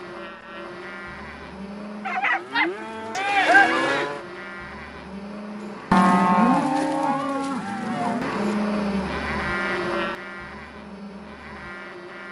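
A herd of cattle mooing, with several overlapping calls over a steady background of lowing. A louder moo starts suddenly about six seconds in and runs for about four seconds.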